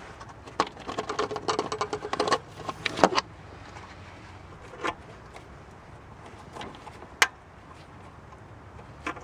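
Plastic funnel and filler cap being handled at the power steering reservoir: a burst of clattering clicks and rattles over the first three seconds as the funnel is worked out of the filler neck, then a few single sharp clicks.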